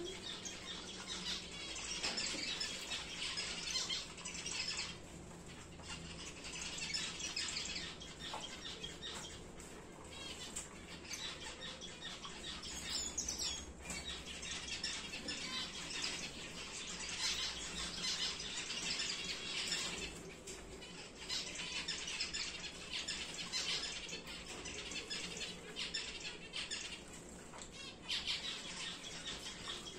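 Star finches chirping and calling, a continuous high-pitched chatter of many small birds that swells and eases without a break.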